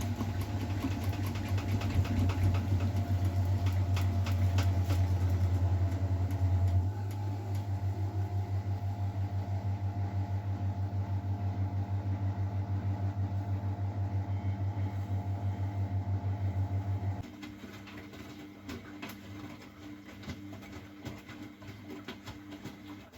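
Miele Novotronic W912 washing machine running with a steady, pulsing mechanical hum. The hum eases slightly about a third of the way in and stops about two-thirds of the way through, leaving quieter machine sounds with scattered light ticks.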